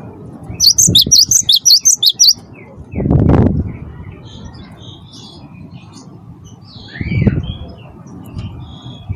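Gelatik batu wingko (cinereous tit) calling, with a fast, loud chattering run of high notes starting about half a second in and lasting nearly two seconds, followed by scattered faint chirps. Two dull low bursts, a thump or rumble, come near 3 seconds and again near 7 seconds.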